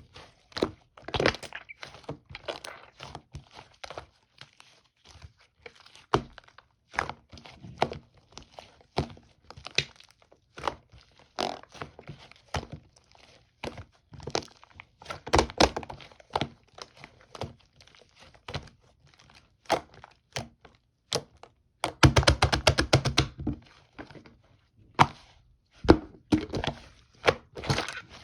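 Orange twisted slime being handled, with irregular sharp clicks, pops and crackles as it is pressed and worked. About three-quarters of the way through comes a quick run of rapid clicking, the loudest part.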